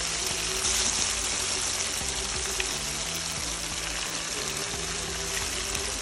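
Battered chicken pieces deep-frying in hot oil in a wok: a steady, dense sizzle.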